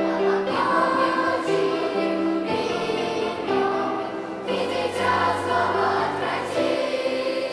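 Children's choir singing a song with sustained instrumental accompaniment.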